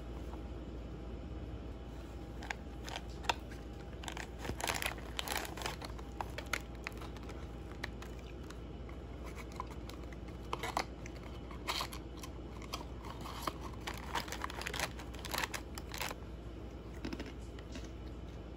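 Cardboard cereal box being handled and opened, its plastic inner bag crinkling, in scattered bursts of papery rustles and crackles over a faint low hum.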